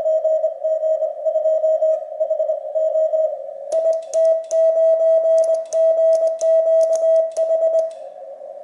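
Icom IC-7300's CW sidetone, a single beep of about 600 Hz, keyed on and off in Morse code from a Begali Expedition paddle key. The paddle's metal clicks are heard through the middle of the passage. Near the end the keying stops and only filtered band hiss at the same pitch remains.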